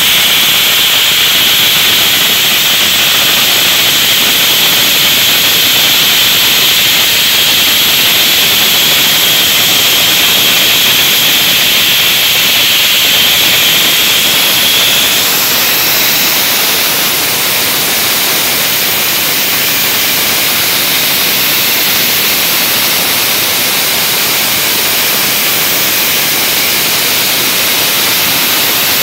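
Dry ice blasting nozzle running: a loud, steady hiss of compressed air and dry ice pellets scouring limescale off a metal tread plate. Its tone shifts slightly about halfway through.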